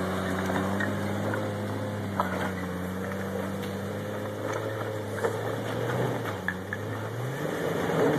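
ATV engine running at a low, steady speed as the quad rides over a rocky dirt trail, with a brief rise in pitch near the end. A few light knocks sound along the way.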